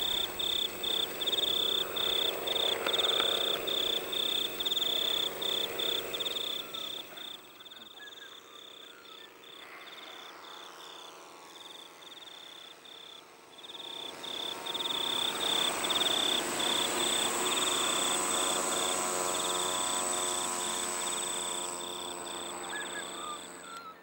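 Turnigy Micro Quad's small electric motors and propellers whining in flight, dropping away for several seconds in the middle and swelling again from about fourteen seconds in. A high chirping of insects pulses several times a second throughout.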